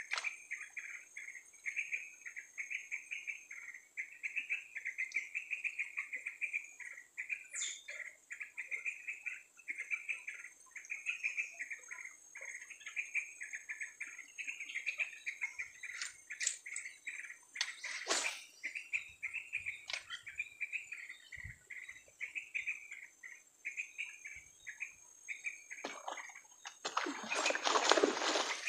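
Continuous rhythmic chirping, several pulses a second, from small wildlife, over a steady high-pitched whine. A few sharp clicks fall mid-way, and a loud rushing noise comes near the end.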